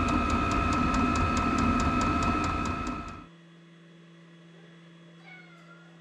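VEVOR diesel air heater running: a steady fan whine over a low rumble, with a rapid even ticking about six times a second, cut off abruptly about three seconds in. Then a quiet low hum with a faint cat meow near the end.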